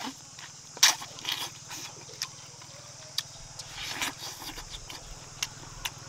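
Wet chewing, smacking and clicking of pork trotters being eaten, in short irregular bursts, the loudest about a second in, over a steady low hum.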